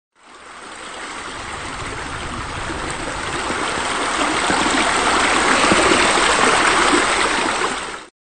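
Water from a rock waterfall spilling into a swimming pool, running steadily. It fades in, grows gradually louder, and cuts off suddenly near the end.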